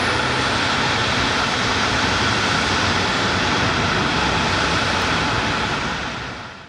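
Steady jet noise from a Boeing 767-346's engines, with a constant whine in the middle of the range; it fades away near the end.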